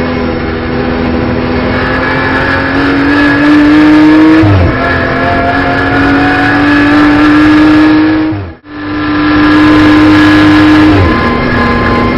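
BMW M240i Racing Cup's turbocharged 3.0-litre straight-six heard from the cockpit, pulling hard under load with a slowly rising pitch. It drops sharply on upshifts twice, and the sound cuts out for a moment about eight and a half seconds in.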